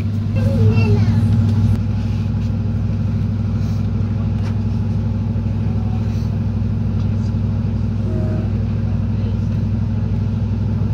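Steady low drone heard inside a moving ADP-class diesel railcar: the engine and running gear holding a constant hum, which swells briefly about a second in.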